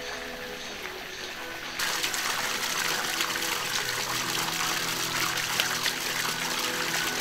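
Splashing, falling water: a steady dense hiss that starts abruptly about two seconds in. Soft background music with held notes runs underneath.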